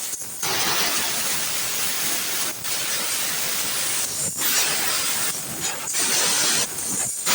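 Compressed-air blow gun hissing in long blasts with brief breaks, blowing out an engine block.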